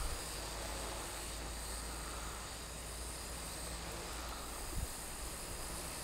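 Steady wind noise rumbling on a hat-mounted camera's microphone, with the faint high whine of a small quadcopter's motors far overhead. There is one soft knock about three-quarters of the way through.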